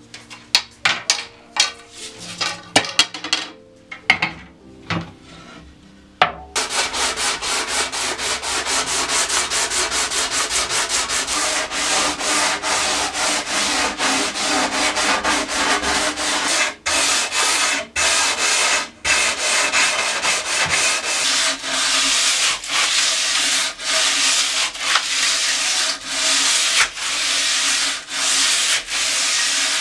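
Wood being hand-sanded in quick, even back-and-forth strokes, most likely the limbs of an Osage orange selfbow during fine tillering. The sanding starts about six seconds in, after a few sharp clicks and knocks, and keeps a steady rhythm with brief pauses.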